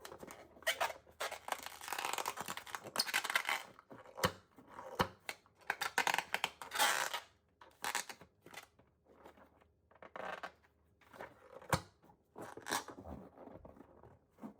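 Scissors snipping, with scratchy tearing and rustling handling noise between a few sharp clicks.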